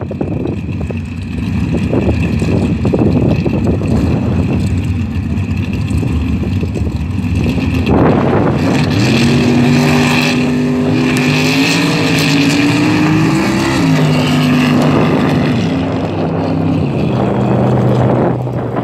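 Drag racing engine at a sand drag strip: a rough rumble, then about eight seconds in it opens up loudly and revs hard. The engine pitch holds, climbs and then steps down in stages over the next several seconds.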